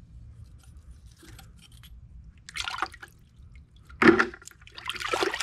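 Water splashing and dripping in a bucket as hands work a dental-casting flask in milky water, washing the investment plaster out from around a fresh silver casting. A few separate splashes, the loudest about four seconds in.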